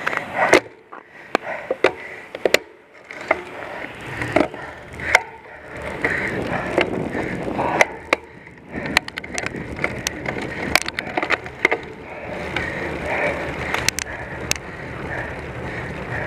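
Bicycle rolling on pavement: a rumble of tyres on the road with irregular clicks and knocks, the rumble growing louder about six seconds in.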